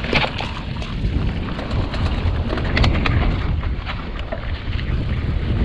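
Mountain bike riding down a rough, rooty trail: wind rumbling on the camera microphone, with the bike's chain and frame rattling in many quick knocks over roots and rocks.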